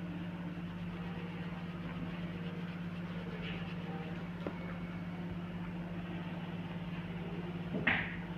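Steady low electrical-sounding hum, with faint scratches and ticks of colouring on a paper sheet. A short rustle near the end as the paper sheet is shifted on the mat.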